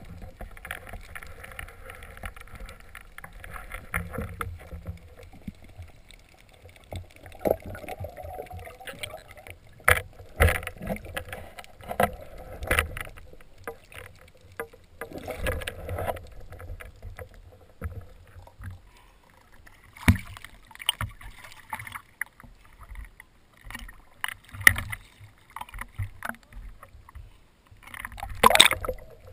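Muffled underwater sound through an action camera's waterproof housing: low water noise with scattered knocks and clicks. Near the end there is a louder rush of water as the camera comes up to the surface.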